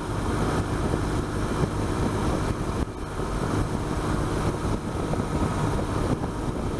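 BMW R1200GS boxer-twin engine running steadily at road speed, with wind and road noise.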